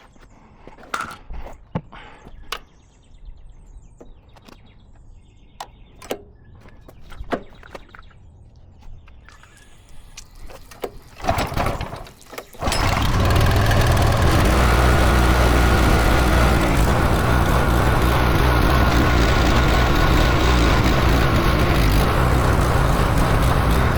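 Scattered clicks and knocks of equipment being handled, then about halfway in a gas-powered pressure washer engine starts and runs steadily and loudly.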